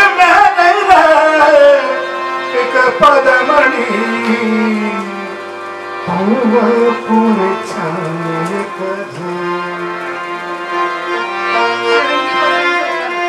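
Rajasthani Manganiyar folk song: a man sings over a held harmonium drone, with a hand-played dholak drum. The drum strokes are thickest in the first three or four seconds.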